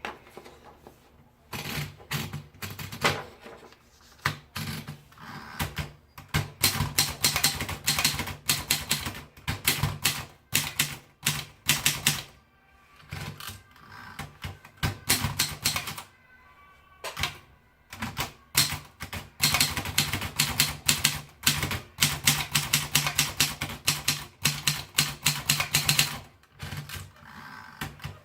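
Brosette portable typewriter being typed on: rapid runs of crisp keystroke clacks in bursts of a few seconds, with short pauses between runs.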